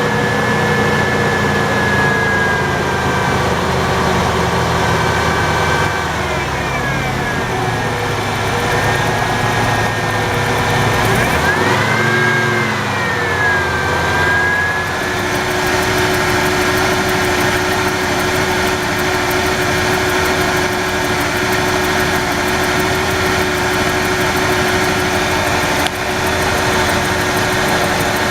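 An engine running, its pitch rising and falling briefly a couple of times in the first half, then holding steady.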